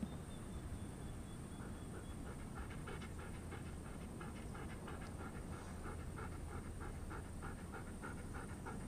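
Faint rapid panting, about three breaths a second, over a low steady hum.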